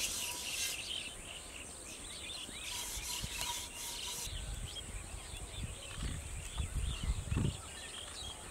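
Metal cooking pot being scrubbed by hand, a rasping scouring sound in two spells, near the start and again about three seconds in. Soft low thumps follow near the end as the pot is handled and set down.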